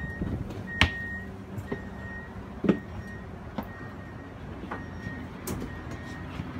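Passengers boarding a train: an electronic beep repeating about once a second, over a steady low rumble, with several sharp knocks and clicks from luggage, footsteps and clothing brushing the microphone.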